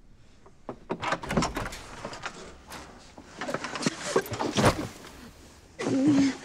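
A door being opened, with a run of irregular clicks, knocks and rustling.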